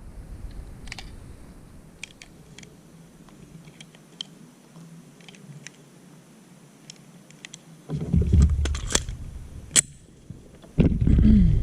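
Scattered light clicks of a 10mm pistol and its magazine being handled, then a louder stretch of rubbing handling noise with two sharp clicks near the end.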